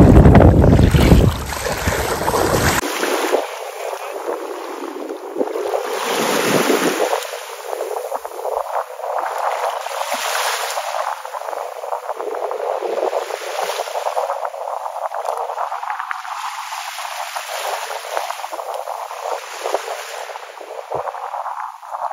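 Wind buffeting the microphone for the first few seconds, which is the loudest part. After an abrupt cut, the steady hiss of small waves lapping in shallow sea water, swelling and easing gently.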